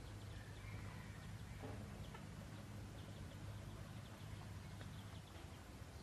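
Red junglefowl rooster giving a few faint clucks in the first two seconds, over scattered tiny high chirps and a low steady hum.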